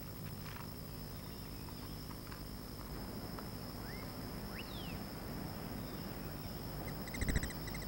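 Forest ambience: a steady high-pitched insect drone, a few short rising bird chirps about halfway through, and a buzzy pulsed call near the end.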